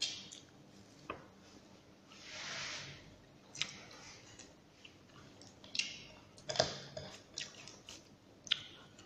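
Quiet eating sounds: chewing, and fingers squishing and mixing rice with sautéed bottle gourd on a plate, with scattered light clicks and a soft hiss about two seconds in.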